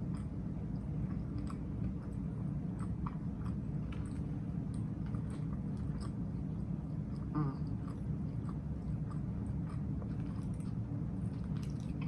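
A person chewing mouthfuls of a big chopped grinder sandwich close to the microphone, with scattered wet clicks and soft crunches, over a steady low hum.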